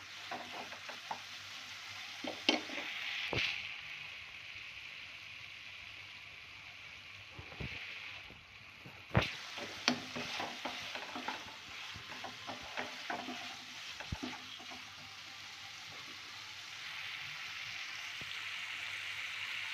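Potato sticks frying in oil in a kadhai, a steady sizzle, with a wooden spatula stirring and knocking against the pan a few times. The potatoes are fully cooked.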